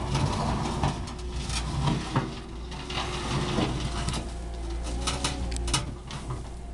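Zettelmeyer 602 wheel loader's diesel engine running steadily under load as the bucket digs into soil. Scattered clatters of earth and stones come from the bucket, thickest about five seconds in.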